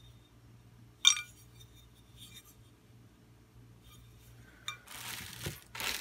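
Two metal rack-mount brackets clink against each other once with a short ring, then a fainter clink about a second later. Near the end a plastic bag crinkles.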